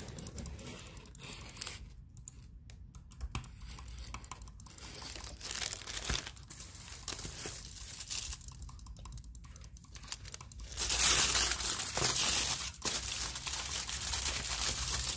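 Aluminium foil and paper food wrappers rustling and crinkling as they are handled. In the last few seconds the foil around a takeaway box is peeled open, giving louder, denser crinkling.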